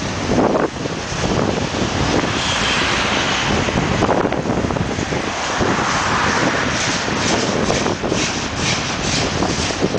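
Double-stack container train rolling past: a steady rumble and rattle of wheels on rail and well cars, with wind buffeting the microphone. In the second half a quick, regular clicking sets in, about three a second.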